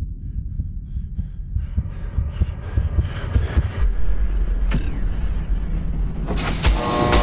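Steady low rumble with a building series of clicks and thuds over it. A deep bass swells in partway through, and the build ends in a loud sudden hit near the end.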